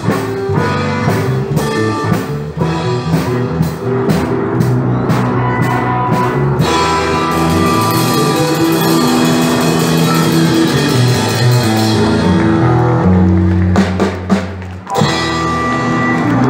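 A live student band playing a song on drum kit and electronic keyboard through a PA speaker. Steady drum beats run through the first half, then give way to held chords under a wash of cymbals, with a short drop near the end.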